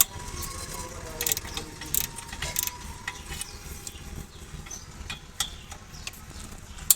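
A series of sharp clicks and knocks, the loudest right at the start and near the end, over a low steady rumble.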